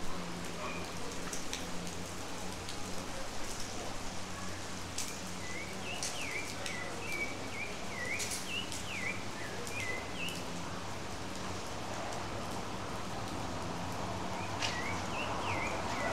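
Steady rain falling. A bird calls in quick short chirps from about five seconds in to about ten seconds, and again near the end, over a low steady hum.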